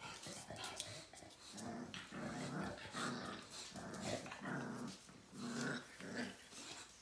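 Bulldogs growling in short, low grumbles, about eight in a row starting about a second and a half in.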